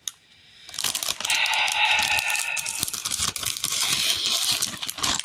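Plastic Lego parts bag rustling and crinkling, starting about a second in and lasting several seconds.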